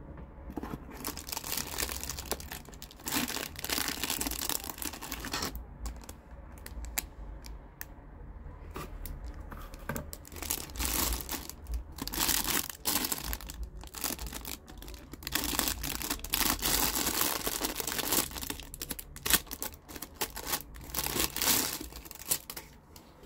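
Clear plastic wrap crinkling and tearing in irregular bursts as it is pulled off a pistol-shaped lighter.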